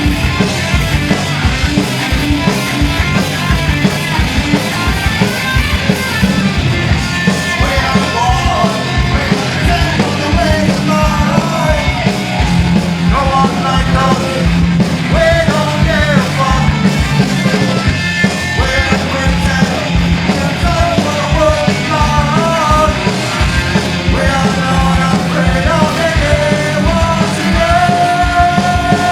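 Live punk rock band playing loud and fast: pounding drums and guitars, with shouted vocals coming in after a few seconds.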